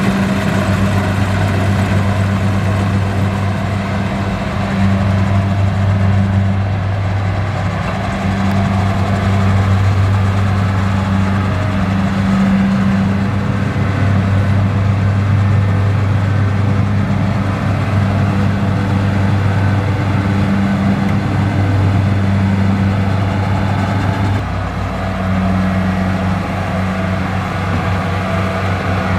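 Kubota DC-70 combine harvester's diesel engine running steadily, a continuous low drone that dips briefly near the end.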